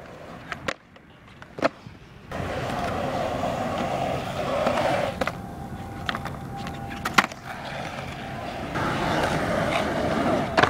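Skateboard wheels rolling on a concrete skatepark bowl. After a few sharp clicks in the first two seconds, a steady rolling sound sets in, with occasional clacks of the board; the loudest clack comes a little past halfway.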